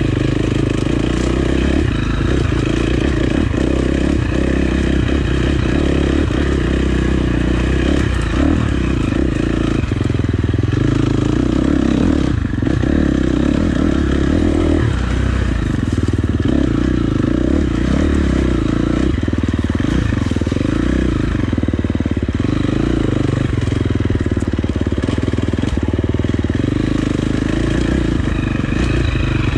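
Dirt bike engine running as the bike is ridden along rough, wet singletrack, its note swelling and easing with the throttle, with a few knocks from the bike over the ground.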